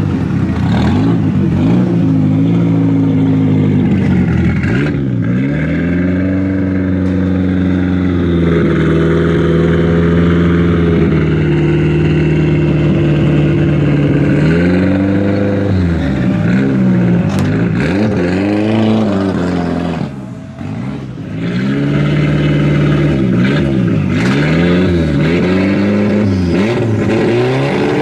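Hill-climb race car's engine revved while standing still: held at steady high revs for several seconds at a time, then let off and blipped back up over and over, with a brief drop about twenty seconds in.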